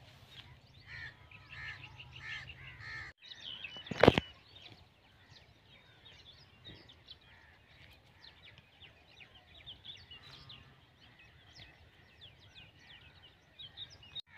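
Many small birds chirping, with short calls overlapping one another. The sound drops out briefly about three seconds in, and a single loud knock follows about a second later.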